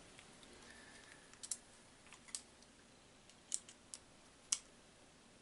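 Faint, scattered clicks and taps, about six, the sharpest about four and a half seconds in, from the plastic crossbow pistol and its fiberglass limb being handled and shifted as the limb is centred before the set screw is tightened.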